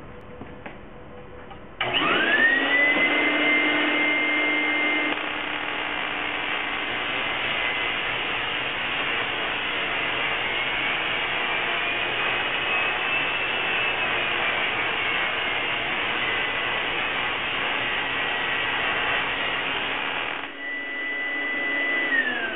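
Spark-gap Tesla coil firing: a loud, harsh buzz of the spark gap and streamers that starts suddenly about two seconds in and cuts out near the end, over a motor whine that rises in pitch as it spins up and falls away after the firing stops. A few clicks come before it starts. The coil is run with a narrowed spark gap, which the operator finds doesn't work.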